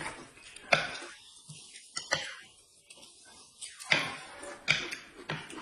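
Noodles being slurped and chewed, in several short noisy slurps about a second apart, with a few sharp clicks between them.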